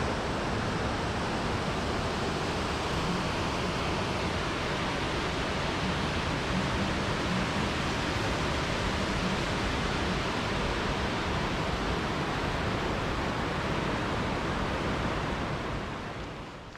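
Water rushing over a river weir: a loud, steady rush of falling water that fades out near the end.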